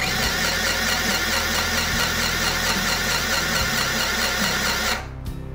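Mini portable electric sewing machine running steadily at speed, its needle stitching through thick cloth, then stopping suddenly about five seconds in when the foot pedal is released.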